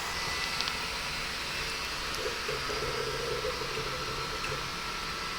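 3D printer running: a steady whir of its cooling fans with faint, shifting motor tones underneath.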